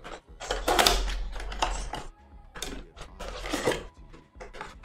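Cardboard trading-card box being torn and pried open by hand: rustling and tearing of the packaging in two long bursts and a short one near the end.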